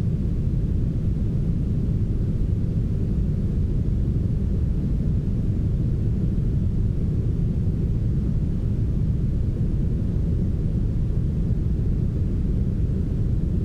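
Steady, heavily smoothed brown noise: a deep, even hiss that stays low, with almost nothing in the high end and no change over time.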